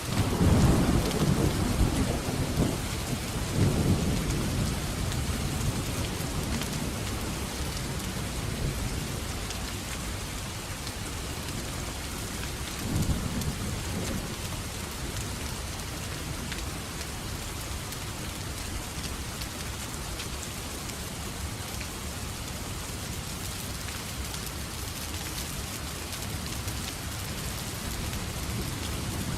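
Steady heavy rain with thunder: a long roll of thunder rumbles in at the very start and dies away over several seconds, and a second, shorter rumble comes about halfway through.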